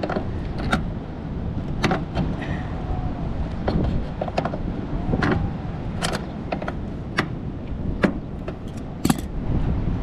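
Sharp metal clicks and clinks of tools and gauge fittings being handled, a dozen or so at irregular intervals, over a steady low rumble.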